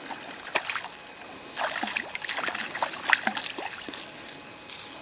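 Hooked perch thrashing and splashing at the water's surface as it is reeled in. The irregular splashes get louder about one and a half seconds in.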